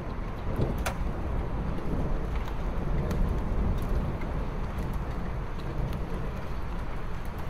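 Approaching thunderstorm: a deep, rolling rumble of thunder over a steady wash of storm noise, swelling between about two and four seconds in, with a few faint sharp clicks.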